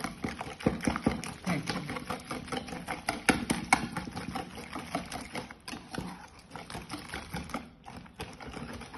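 Hand wire whisk beating raw eggs with chopped vegetables in a plastic bowl: quick, uneven clicks and scrapes of the wires against the bowl, several strokes a second, growing lighter near the end.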